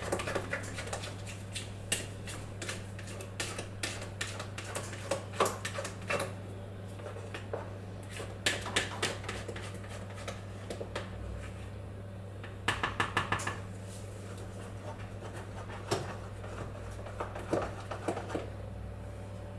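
Spatula scraping and clicking around the inside of a container of blended strawberry purée, with a quick run of taps about two-thirds of the way through. A steady low hum runs underneath.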